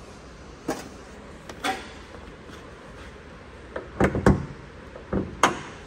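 Hyundai Avante AD's bonnet being unlatched and lifted open: a couple of light clicks, then a loud cluster of metallic clunks about four seconds in and two more knocks near the end.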